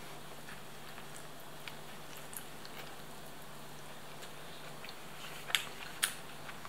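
Quiet indoor room tone with a steady low hum and scattered faint clicks, then two sharper clicks about half a second apart near the end.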